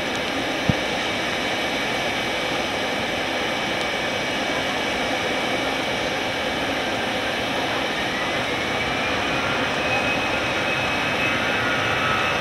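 Jet airliner's engines running on the runway, a steady rush with a whine that rises in pitch about eight seconds in and then holds as the engines spool up for take-off; the noise grows slowly louder. A single short click about a second in.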